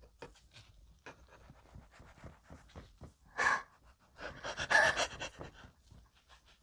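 A knife sawing through the crust of a triangular fried bibim bread, a run of small crackling, scraping ticks. Short breathy bursts of laughter come about three and a half and four and a half seconds in.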